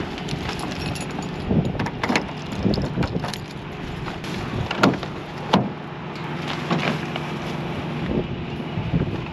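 Truck diesel engine idling steadily, with scattered knocks and clunks as someone climbs up into the cab.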